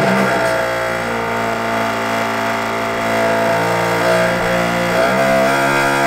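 A hand-held vibrating power tool pressed against the cooling unit of a camper-van three-way absorption fridge, running with a steady buzz and a pan-like rattle. Its pitch shifts about five seconds in. The vibration is meant to shake loose blockages in the cooling unit that stop the gas from circulating, so that the fridge cools again.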